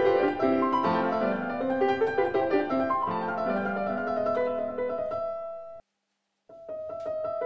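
Background piano music playing a slow melody of sustained notes; it cuts out completely for about half a second a little before six seconds in, then resumes.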